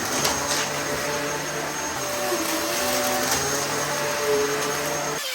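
Dyson DC14 bagless cyclonic upright vacuum cleaner running: a steady rush of air over the motor's hum, with a few faint clicks in the first half second. The sound changes abruptly near the end, where the low rumble drops away.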